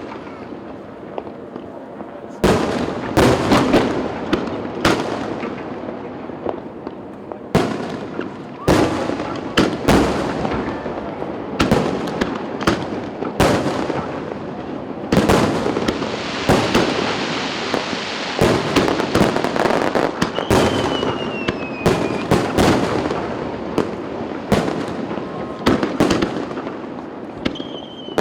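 Fireworks display: aerial shells bursting in quick, irregular succession with loud booms, a dense stretch of crackling around the middle, and two short falling whistles.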